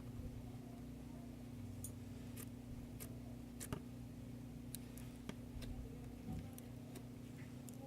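Slime being handled, giving sparse, irregular small clicks and pops over a steady low hum.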